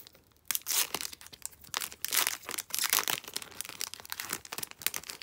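A foil-lined O-Pee-Chee hockey card pack being torn open by hand, the wrapper tearing and crinkling in quick, irregular crackles from about half a second in.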